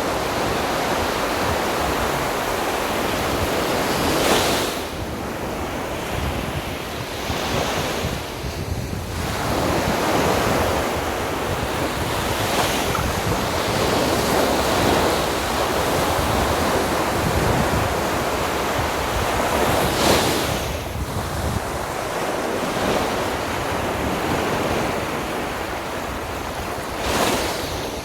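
Sea waves breaking on a beach. The surf runs steadily, with a louder wave crashing every several seconds, and wind buffets the microphone.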